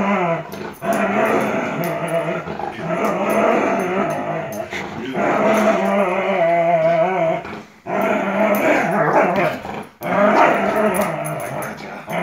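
Airedale terrier growling in play while tugging on a rope toy: long growls that run on for several seconds, broken by a few short pauses.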